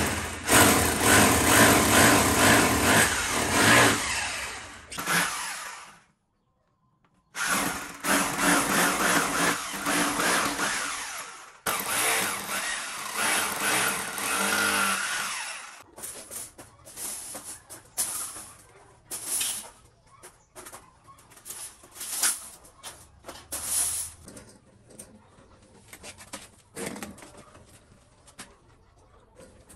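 An electric hammer drill bores into a concrete block wall in several loud runs, winding down with a falling whine about halfway through. After that come scattered light clinks and knocks as chain-link wire mesh is fitted.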